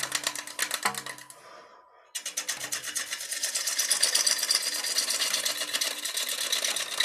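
Gouge roughing a spinning cedar natural-edge bowl blank on a lathe: a rapid, even ticking as the tool meets the uneven rim once each turn, an interrupted cut. The cutting fades away about a second and a half in and starts again abruptly about two seconds in.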